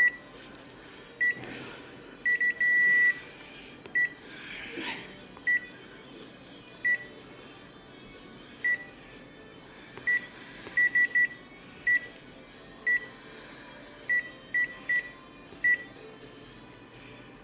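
Photocopier control-panel keys beeping as settings are keyed in: short single-pitch beeps at irregular intervals, some in quick runs of two or three, with one longer beep a few seconds in.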